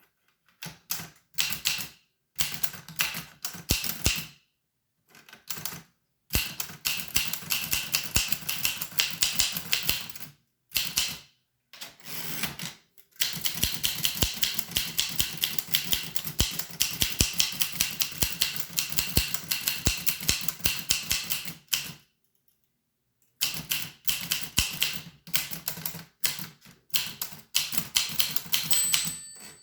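1895 Williams No. 1 typewriter being typed on: rapid runs of sharp keystroke clacks, broken by short pauses.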